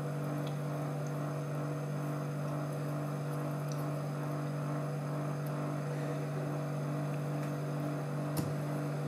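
A steady low hum that holds one pitch, with one faint click about eight seconds in.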